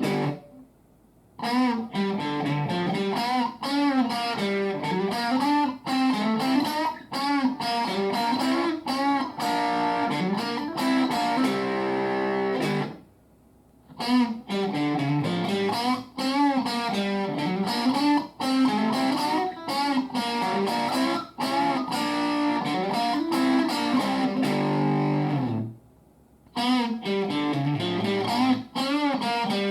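Electric guitar played through a BOSS Nextone Stage amp on its lead channel with the gain at 10, giving a distorted lead tone. A melodic phrase with quick runs is played over and over, with a brief stop before each repeat.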